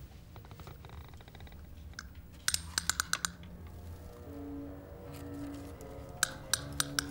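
Jewelry being handled, clicking and clinking: a light rattle about a second in, a quick run of sharp clicks about two and a half seconds in and a few more near the end. Soft background music with low held notes comes in about four seconds in.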